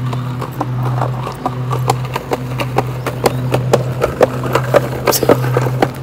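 Footsteps on a concrete sidewalk: a quick, irregular patter of knocks, over a steady low hum.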